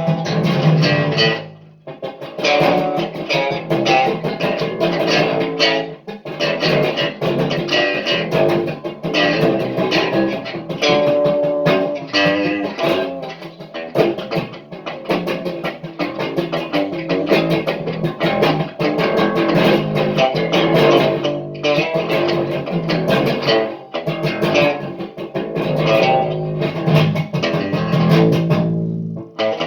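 Guitar playing: a steady stream of quickly picked notes over a low sustained bass part, with brief pauses about two seconds in and again near the end.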